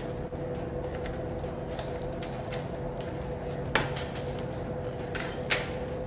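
Steady hum with a faint constant tone, broken by a few sharp knocks and clatters as a car radiator is worked loose and lifted out; the loudest knocks come about four seconds in and again near the end.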